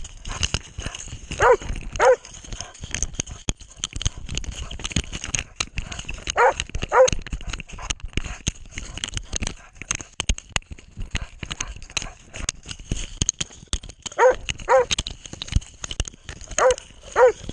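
Hunting dog barking in four quick double barks, each pair about half a second apart, over constant rustling and knocking from the dog-worn camera moving.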